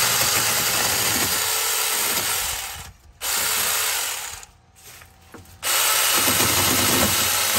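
Tomyvic 6-inch 21-volt cordless mini chainsaw cutting through a thin tree branch. It runs in three bursts with brief stops about three and five seconds in, and its motor pitch sags as the chain bites into the wood.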